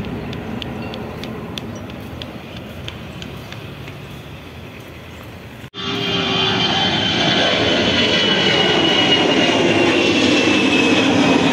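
Jet airliner noise in two parts joined by an abrupt cut: first the engines of a Garuda Indonesia Airbus A330 fading slowly as it climbs away, then, about six seconds in, the louder takeoff climb of a Batik Air Airbus A320-214, a deep engine rumble with a high fan whine slowly falling in pitch.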